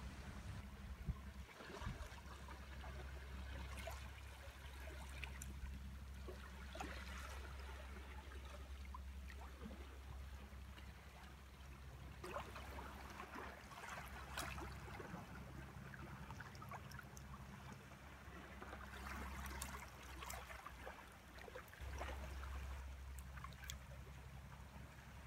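Calm sea lapping gently at a shallow sandy shore: a soft watery trickle with small crackling splashes that swells now and then, over a steady low rumble.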